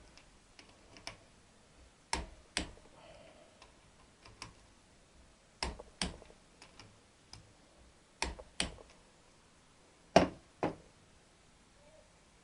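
Click-type torque wrench clicking over on the connecting-rod big-end nuts of a Triumph T120 crankshaft as they reach set torque. The sharp clicks come in four pairs a couple of seconds apart, with fainter ticks between them.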